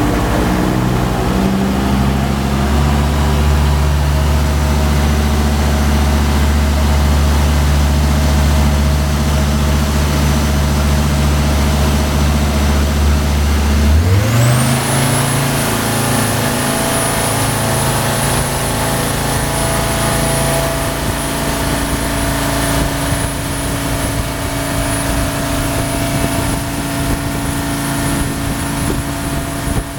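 Turbo-diesel inboard engine of an aluminium jet boat running steadily at low revs, then revving up quickly about halfway through as the boat speeds up. A high turbocharger whistle rises with the revs and then holds steady under power.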